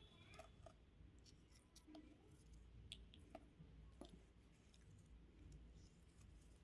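Faint, irregular small clicks and ticks from craft materials being handled for ASMR.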